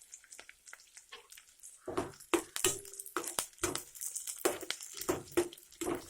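A metal spoon clinking and scraping against a metal cooking vessel in a quick, uneven run of taps and knocks, starting about two seconds in, some of them ringing briefly.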